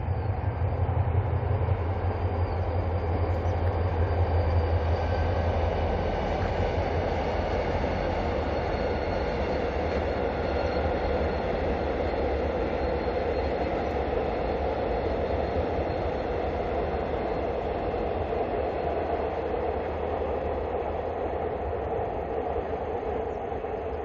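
Diesel-hauled freight train rolling past on the rails in a steady, continuous rumble. A low engine drone is strongest in the first few seconds and then eases. Faint high-pitched wheel tones sit above the rumble.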